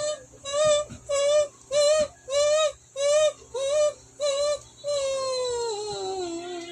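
A woman's voice making a run of about eight short, high-pitched, wavering calls at roughly two a second, then one long call that slides down in pitch, a dog-like howling noise made to get dogs excited.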